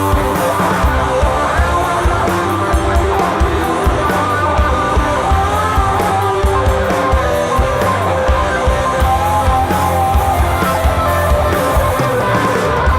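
Psychedelic stoner rock band playing live at full volume: electric guitars over bass and drums in one continuous, dense wall of sound.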